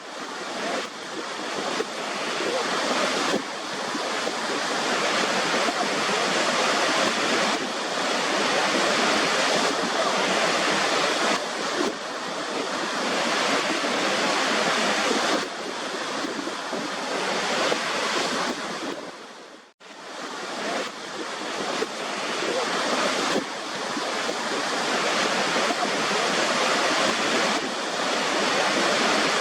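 Waterfall: a steady rush of falling water. It cuts out for a moment about two-thirds of the way through, then swells back in.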